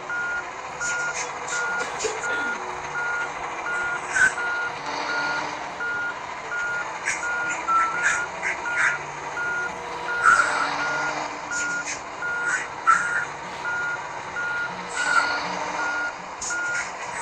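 Heavy vehicle's reversing alarm beeping steadily at a single pitch, about two beeps a second, over a running diesel engine, with scattered short sharp knocks and squeaks.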